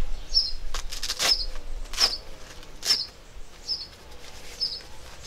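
A bird chirping over and over, a short high chirp about twice a second. Three or four sharp rustles of a bag or packaging being handled stand out about one, two and three seconds in.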